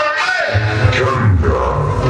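Loud Latin dance music, a guaracha, played over a large sound system: a pulsing bass line with a melody bending over it.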